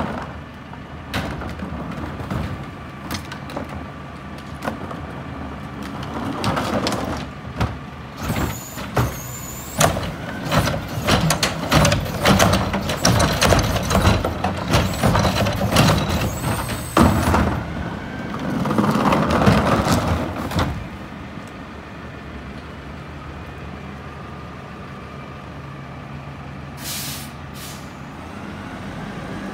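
Front-loader garbage truck's diesel engine running while wheeled plastic carts are emptied into its carry can: a long run of clattering and banging, with the engine rising twice as the hydraulics work. It then settles to a steady idle, with a short air hiss near the end.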